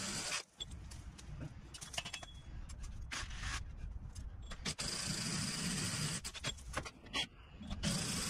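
Cordless DeWalt hammer drill driving a masonry hole saw into brick, running in bursts: it stops half a second in, runs briefly just after three seconds, runs again for over a second past the middle and starts up once more near the end.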